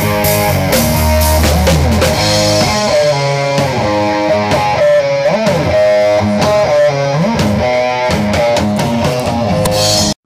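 Rock music: an electric guitar plays a melodic lead with string bends over bass and drums, with cymbal crashes in the first few seconds. The music cuts off suddenly near the end.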